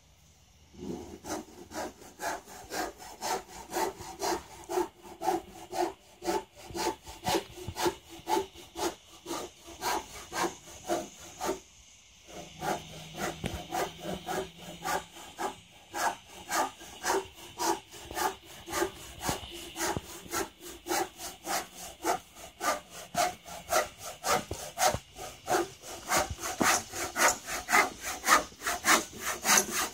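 Hand saw cutting through framing lumber in steady back-and-forth strokes, about two to three a second, with a short pause about twelve seconds in and stronger strokes near the end.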